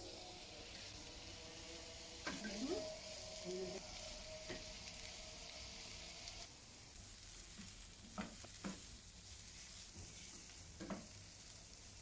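Sliced onions sizzling as they fry in a pan on a gas burner, stirred with a wooden spatula that knocks against the pan a few times. The sizzle grows fainter about six and a half seconds in.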